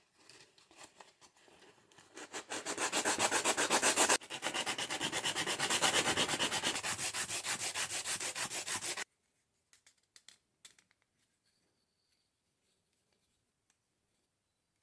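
Sandpaper on a hand block rubbed quickly back and forth over the end of a small wooden puzzle piece, at about four strokes a second, with a brief pause partway and a sudden stop about nine seconds in. A few light clicks follow.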